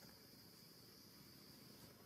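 Near silence: faint outdoor ambience with a thin, steady high-pitched insect drone.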